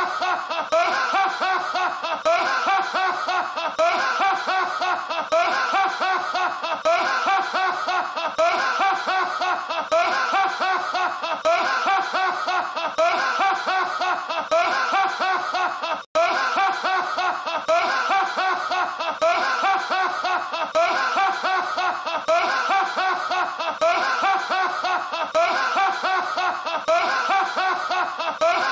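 A man's hearty, high-pitched laughing from a film soundtrack. The same short stretch of laughter is looped over and over without a break, with a split-second gap about halfway through.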